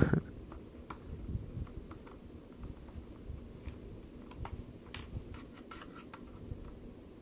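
Scattered light clicks and taps from small screws, a screwdriver and the plastic parts of an RC toy truck being handled during disassembly, with a short knock at the very start.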